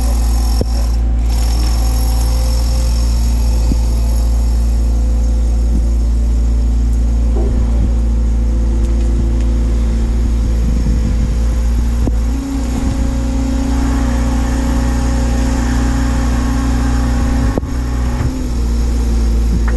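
Doosan DX180 excavator's diesel engine running steadily under hydraulic work, its tone shifting slightly after about twelve seconds. A few sharp knocks stand out, one near twelve seconds and one near the end.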